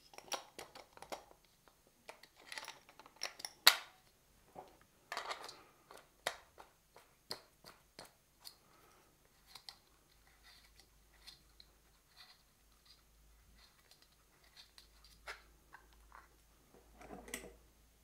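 Clicks, knocks and short scrapes of metal parts being handled and screwed together on a Kinu M47 hand coffee grinder, with one sharp click a little under four seconds in and a burst of scraping near the end as the crank handle is fitted.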